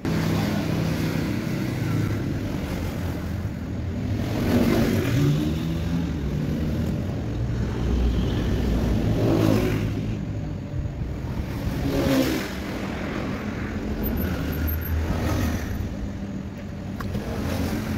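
A motor vehicle engine running, its pitch rising and falling several times as it is revved.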